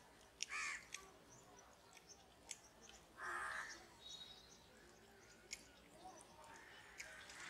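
A crow cawing twice, with scattered faint clicks of fingers mixing rice on a steel plate.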